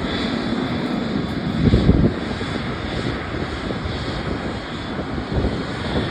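Airliner engines heard as a steady rushing noise, with a brief louder gust of wind on the microphone just before two seconds in.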